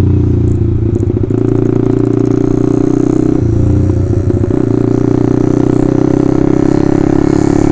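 Honda CBR150R's single-cylinder four-stroke engine through an Austin Racing aftermarket racing exhaust, running loud and steady under way, its note shifting a few times with the throttle.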